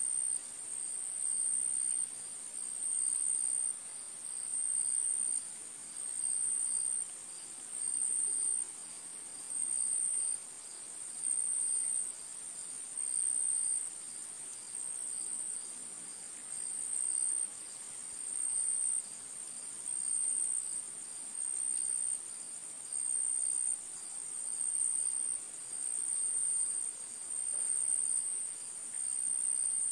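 A high-pitched insect trill runs steadily, swelling and fading in an even rhythm about every second and a half.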